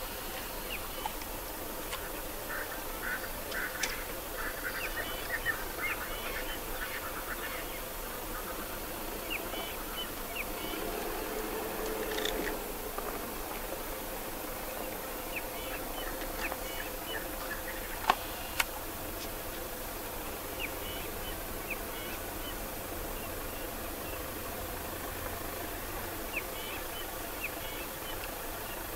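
Wild birds calling in the bush: clusters of short chirps come and go, with a lower, drawn-out call about ten to thirteen seconds in. Two sharp clicks stand out near the middle.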